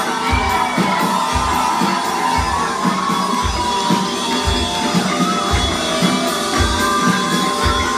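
Music with a steady kick-drum beat under a pitched melody line.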